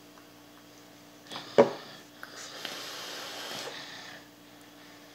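A single sharp knock about one and a half seconds in, then an e-cigarette being drawn on for about a second: a steady airy hiss of air pulled through the atomizer past the firing coil.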